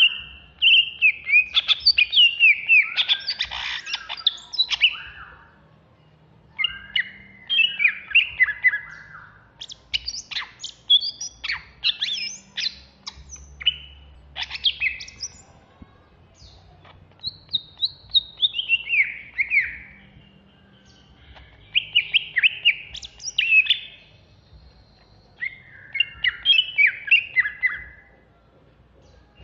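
Greater green leafbird (cucak hijau) singing hard in the fast 'ngentrok' style. It gives bursts of rapid sharp chips and whistled notes, some sliding down in pitch, in phrases a few seconds long with short pauses between them.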